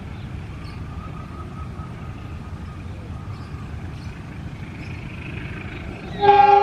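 Passenger train running along the track with a steady low rumble. About six seconds in, a diesel locomotive's horn sounds suddenly and loudly, held past the end.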